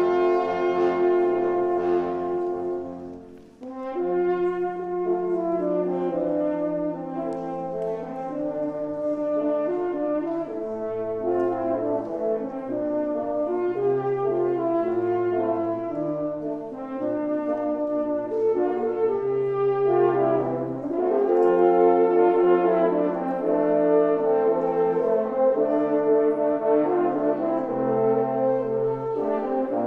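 French horn ensemble playing in several parts, a melody over held chords. A held chord dies away about three seconds in, and a new phrase starts right after.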